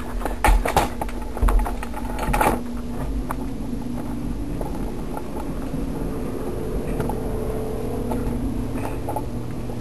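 Knocks and bumps from a handheld camera being moved in the first two and a half seconds, then a steady mechanical hum with a low drone.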